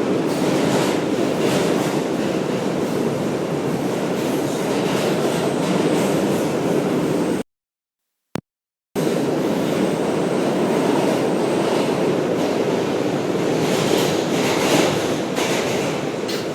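Steady, loud rumbling noise with no clear tones. It cuts out completely for about a second and a half about halfway through, with a single click in the silent gap, then resumes.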